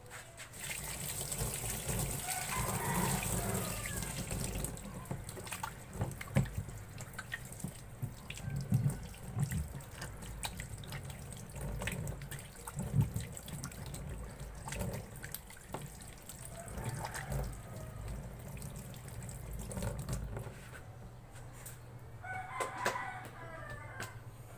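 Water running from a sink tap over hands being washed, with splashing and small knocks against the basin. A rooster crows in the background a few times.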